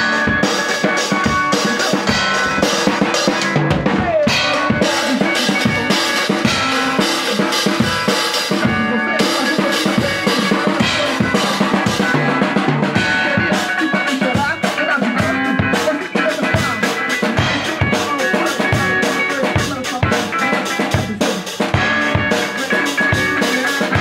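A band playing live: an acoustic drum kit keeping a steady beat with kick and snare hits under an electric guitar played through an amplifier.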